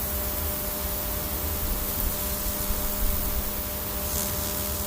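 Steady rushing hiss with a faint, even hum underneath.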